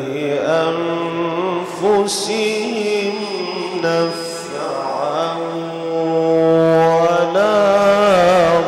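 A man's voice in melodic Quran recitation, Egyptian mujawwad style, drawing out several long held notes with wavering, ornamented pitch into a microphone.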